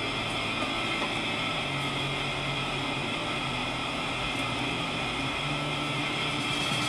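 Steady hum and hiss of a car cabin in stopped freeway traffic, with the engine idling and the car creeping forward.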